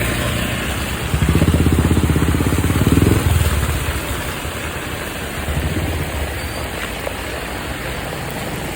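Steady rain noise, with a motor vehicle's engine passing close by for about two seconds from about a second in, louder than the rain while it passes.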